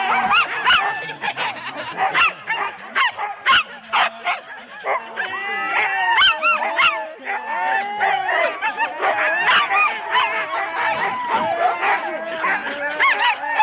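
Many harnessed Siberian huskies barking and yowling together, sharp barks over a dense chorus of overlapping rising and falling calls: sled dogs excited and eager to run while held at a race start.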